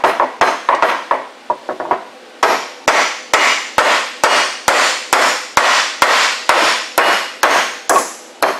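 Hammer striking a Spicer 5-760X U-joint bearing cap, driving it into the yoke of a Dana 44 front axle stub shaft, metal on metal. Irregular taps for about the first two seconds, then a steady run of blows a little over two a second.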